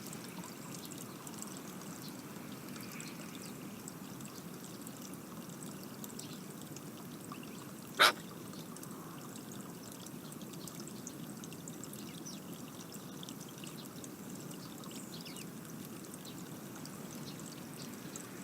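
Steady garden ambience: a low, even hiss with faint high ticks scattered through it, and one sharp click about eight seconds in.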